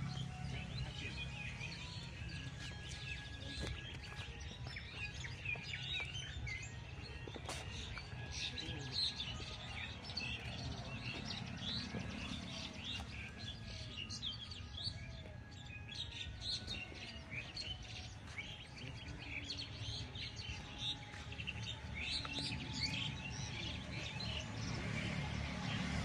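A chorus of many small forest birds chirping and tweeting in quick, overlapping short calls, over a steady low background hum.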